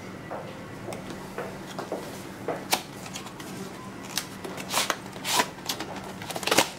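Packaging being handled: a phone-case box is opened and the case slid out in its plastic tray, giving scattered clicks, scrapes and rustles that grow louder and busier in the last few seconds.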